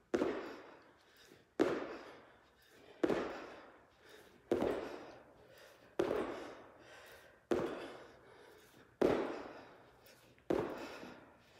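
Sneakered feet landing on a gym floor from repeated jump squats: eight landings about one and a half seconds apart, each ringing out in the room's echo.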